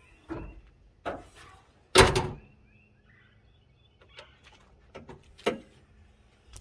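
Toyota Tacoma's steel hood slammed shut with one loud bang about two seconds in, after a couple of lighter knocks. Near the end come a few smaller clunks as the latch is released and the hood lifts on its new gas struts.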